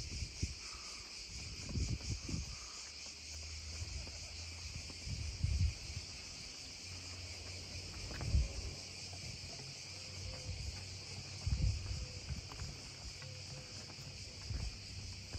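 A steady, dense chorus of insects chirring without a break. Short low thumps on the microphone come and go every few seconds.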